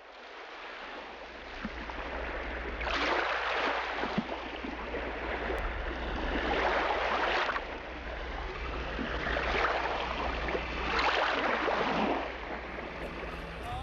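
Sea water rushing and splashing, swelling in surges every few seconds, over a steady low rumble.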